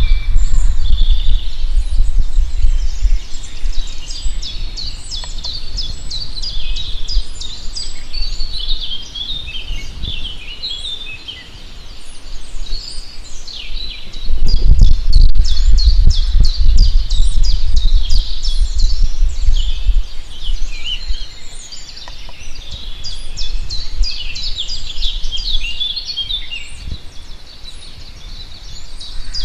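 Many songbirds chirping and singing at once, a dense chorus of quick high chirps that never lets up. Underneath, a low rumble swells louder at the start and again about halfway through.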